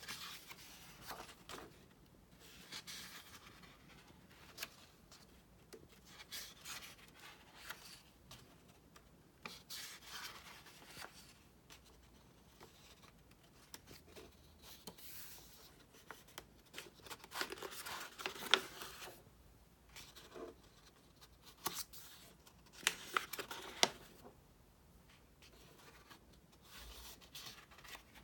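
Pages of a paper booklet being turned and pressed flat by hand: repeated swishes and rustles of paper with a few sharper taps, loudest a little past halfway and again towards the end.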